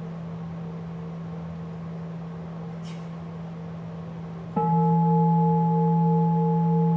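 A large bowl-shaped bell, of the singing-bowl kind, rings on with a steady deep hum. About four and a half seconds in it is struck again, much louder: a deep tone with higher overtones that waver as they sustain.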